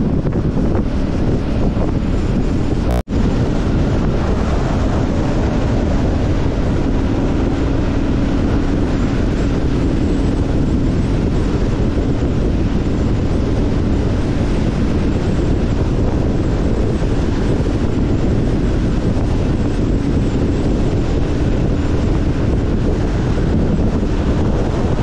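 Heavy wind buffeting on the microphone of a motorcycle riding at steady speed, with the engine's even drone underneath. The sound drops out for an instant about three seconds in.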